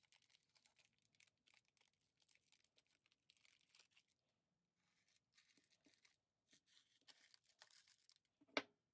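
Clear plastic wrapper crinkling and tearing as it is peeled off a spool of thread, in a run of quiet rustles. One sharp snap near the end is the loudest sound.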